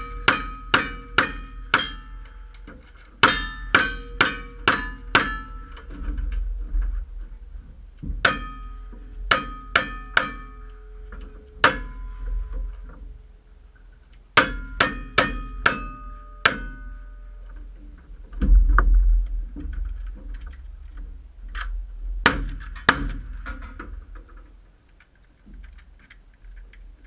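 Cowboy action shooting: quick strings of five or six gunshots with short pauses between strings, each shot followed by the ring of a steel target being hit. One heavier, deeper blast comes about two-thirds of the way through, and a few single shots follow near the end.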